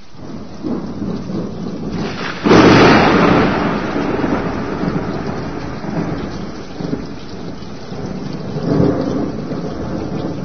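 Thunderstorm: steady rain with a loud thunderclap about two and a half seconds in that rumbles away over several seconds, followed by further lower rolls of thunder.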